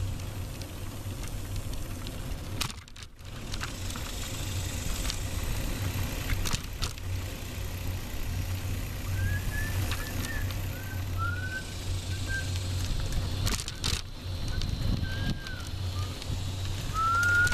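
Steady low rumble of wind and road noise on a microphone carried along on a moving bicycle. Over the second half a bird chirps in short rising and falling notes.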